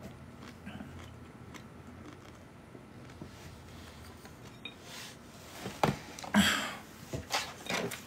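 A man drinking from a plastic drink bottle: quiet swallowing at first, then a few short, louder knocks and a breathy rush of noise near the end.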